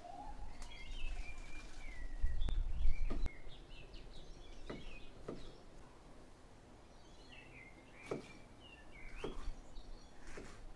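Birds chirping and singing, with a few sharp knocks of a knife on a wooden chopping board as a green bell pepper is sliced. A brief low rumble about two seconds in is the loudest sound.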